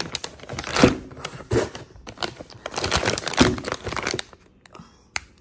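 Plastic packaging crinkling and rustling as products are handled inside a bag, an irregular run of crackles for about four seconds that then trails off, with a single sharp click near the end.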